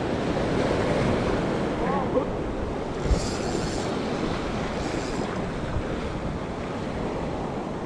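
Sea waves washing onto the shore in a steady surf, with wind on the microphone; a small thump about three seconds in.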